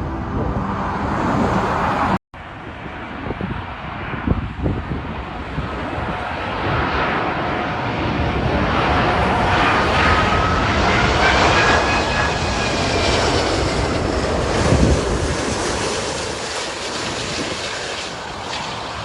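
Jet airliner engines running, a steady rushing noise with a whine that rises in pitch and then holds near the middle. The sound cuts out for an instant about two seconds in.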